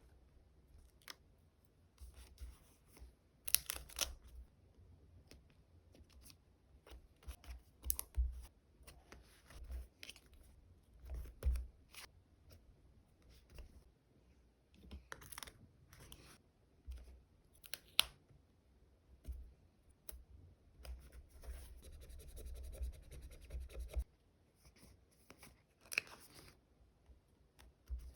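Paper and stickers being handled at a desk: scattered rustles, light taps and small sharp clicks, then a steady rasping stretch of about three seconds starting around two-thirds of the way in.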